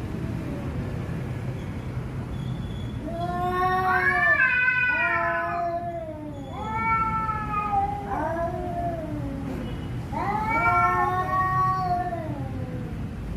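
Two domestic cats trading long, drawn-out yowling meows, three long calls with pitch bending up and down, their voices overlapping at times, over a steady low background rumble.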